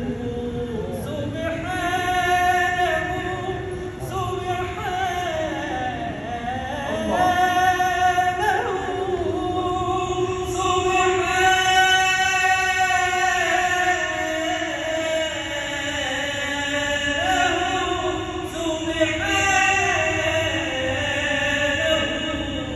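Islamic ibtihal chanted by a male voice: long, ornamented held notes that slide up and down in pitch between phrases.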